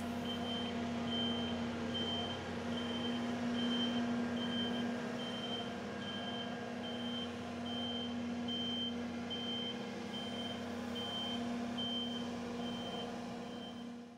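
Vehicle reversing alarm beeping a little faster than once a second over the steady hum of an engine running, from roadworks plant.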